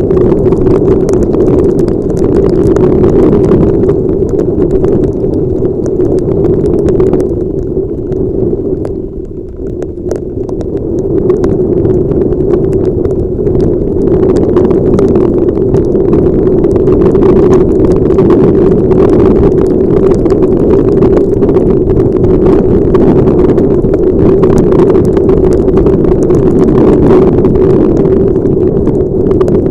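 Wind and road noise rushing over a helmet-mounted camera's microphone on a moving motorcycle in heavy rain, with a steady low hum and a constant patter of small ticks from raindrops hitting the housing. The noise eases off for a few seconds about eight seconds in, then comes back up.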